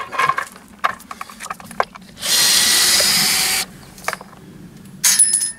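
Cordless drill-driver running in one steady burst of about a second and a half, with small clicks of metal parts before it and a short metallic clatter near the end.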